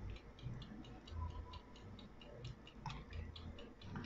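Wind-up mechanical kitchen timer ticking, quick and even at about five ticks a second.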